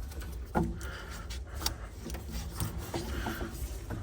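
Scattered light clicks and knocks with soft scraping as metal boiler parts are handled, over a low steady hum.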